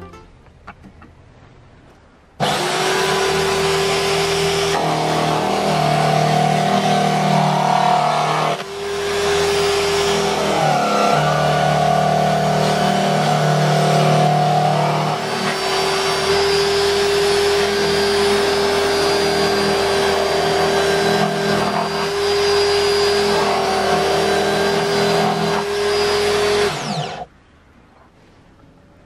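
Electric drill motor running at speed, starting suddenly a couple of seconds in and cutting off suddenly near the end, with one brief dip about a third of the way through and slight shifts in pitch.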